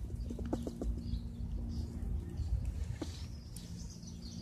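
Squirrel chewing a grape, a quick run of small clicking bites in the first second, followed by birds chirping in the background.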